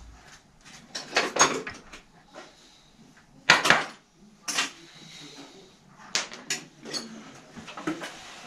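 Scattered clicks and knocks of hands and tools working at a child's bicycle rear hub held in a vise, the loudest knock about three and a half seconds in.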